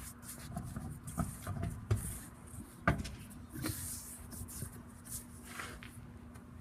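Scattered light clicks and knocks of hand tools and parts being handled while the wheel comes off, the sharpest a single click about three seconds in.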